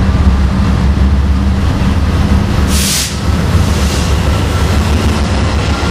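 BNSF freight train led by several GE Dash 9 diesel locomotives passing close by, engines running with a heavy, steady low rumble. A short hiss comes about three seconds in, and a faint high steady whine sets in near the end.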